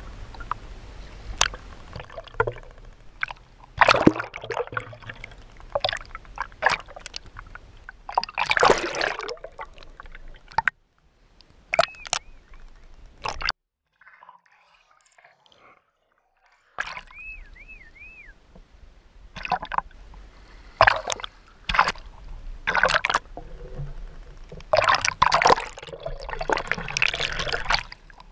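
Sea water splashing and sloshing close to the microphone in irregular bursts. A muffled, nearly quiet stretch of a few seconds falls in the middle.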